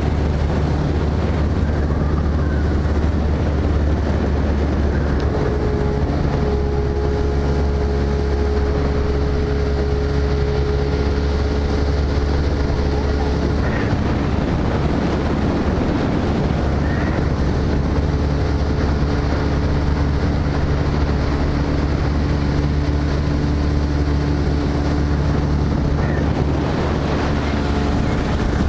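Motorboat engine running steadily at speed, with water rushing past the hull. The engine's note shifts slightly about halfway through.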